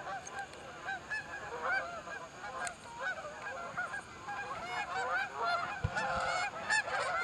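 A flock of geese honking: many short calls overlapping one another, building slightly toward the end, with a few light clicks among them.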